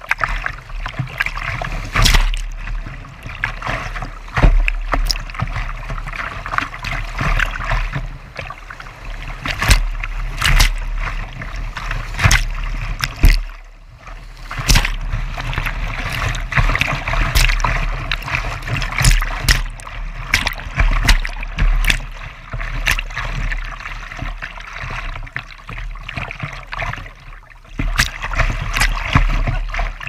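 Whitewater rushing and breaking over a kayak's bow right at a low-mounted camera, with irregular sharp slaps of waves hitting the hull and camera. The rushing eases briefly about halfway through.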